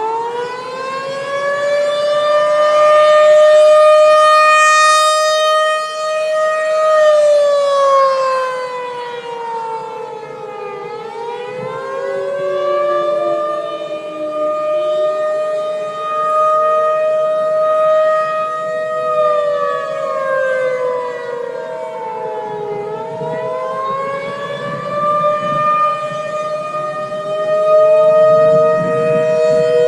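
Mechanical motor-driven siren wailing loudly, two tones sounding together. It holds a steady pitch for several seconds, sags down, then winds back up to full pitch, twice over.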